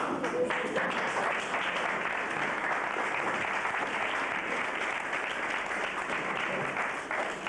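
A roomful of guests applauding: dense, steady clapping.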